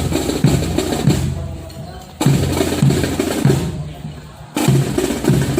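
Drums and percussion playing a steady repeating rhythm, with a loud accented beat about every two seconds and lighter strokes in between.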